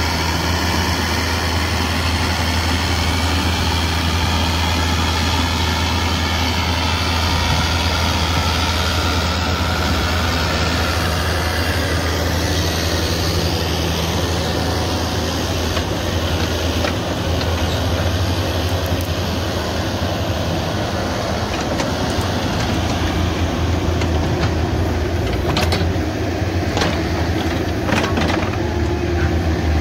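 Diesel engines of a Cat 305.5 mini excavator and a Cat 249D compact track loader running steadily under load while grading dirt. A few sharp knocks near the end as the excavator bucket works the ground.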